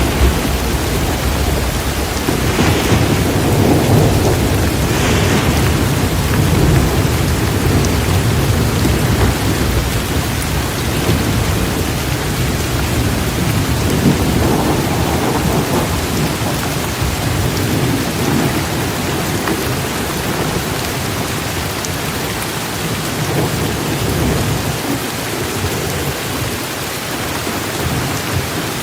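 Heavy rain pouring down steadily, with a low rolling rumble underneath that eases off near the end.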